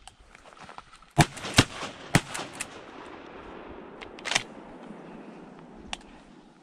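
Shotgun shots: three loud blasts in quick succession just over a second in, then a few weaker sharp cracks, with the sound of the blasts lingering and slowly fading between them.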